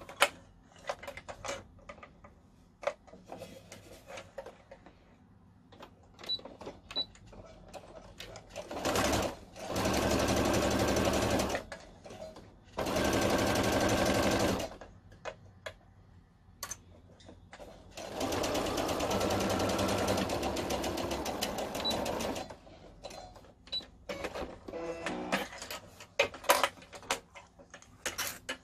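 Sewing machine stitching in three short runs, the middle one shortest, with scattered clicks and small knocks of handling between the runs.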